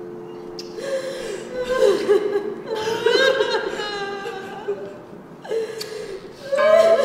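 Several women sobbing and wailing in a staged show of mourning, in uneven bursts of crying with rising and falling cries. A steady held tone fades out in the first second, and another held tone comes in near the end.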